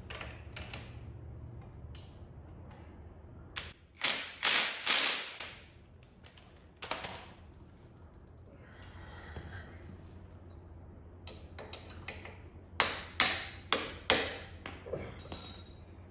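Metal hand tools clinking and tapping during a motorcycle wheel change: a cluster of three sharp, ringing strikes about four seconds in, a few single knocks, and a quicker run of about six strikes near the end, over a low steady hum.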